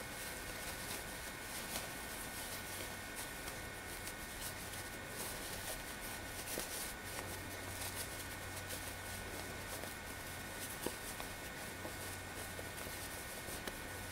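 Faint rustling of cotton gingham fabric handled and turned inside out by hand, over a steady background hiss and low hum.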